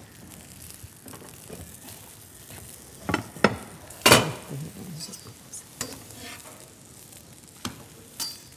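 Flatbread dough frying in pans on a gas hob with a low steady sizzle, broken by several sharp clinks and knocks of the metal pans and a pan lid being handled; the loudest knock comes about four seconds in.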